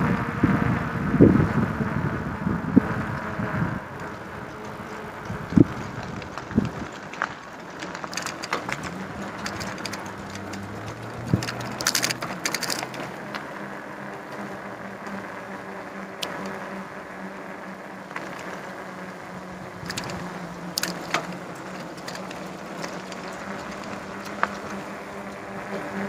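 Bicycle ride through city streets, heard from a phone held by the rider. Low rumbling on the microphone for the first few seconds, then steadier riding noise with scattered clicks and rattles.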